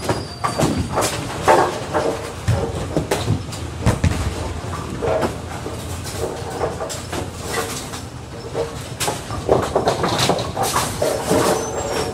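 AMF 82-90XL pinspotter machinery running as it sets a fresh rack of ten pins, with irregular knocks and clattering of pins and machinery amid bowling alley noise.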